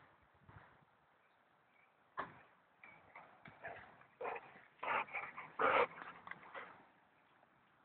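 Springer spaniel making a run of short vocal sounds, loudest in the second half.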